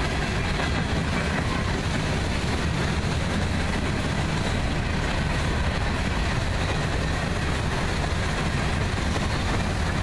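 Covered hopper cars of a freight train rolling past on the track: the steady noise of steel wheels running on the rails.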